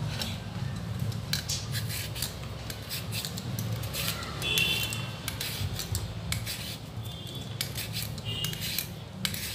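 Raw potato being peeled with a plastic hand-held vegetable peeler: a run of short, quick scraping strokes of the blade along the skin, over a steady low hum.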